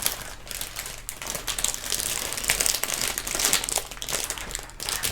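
Plastic Lego parts bag crinkling and crackling as it is handled and pulled open by hand, in irregular bursts.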